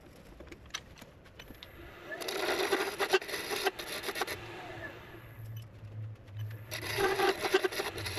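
A turning tool cutting a spinning bolly gum pen blank on a wood lathe. There are a few soft clicks at first, then a rough scraping cut about two seconds in, and another near the end, with a low steady hum in between.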